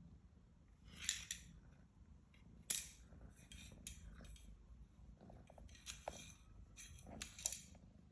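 A cat at play, making irregular short scratchy clicks and rustles, with one sharp click about three seconds in and another near the end.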